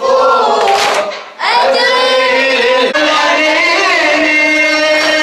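A radood's voice chanting a mournful latmiya a cappella in long drawn-out notes, with a short breath about a second and a half in and a long held note after that.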